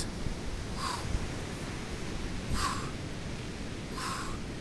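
Three sharp, hissing exhalations about a second and a half apart, one with each rotation swing of a water-filled training bag, over a steady low rumble of surf and wind.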